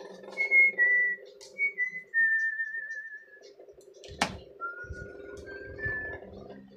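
A person whistling a slow tune in long held notes that step up and down in pitch, with one sharp click about four seconds in.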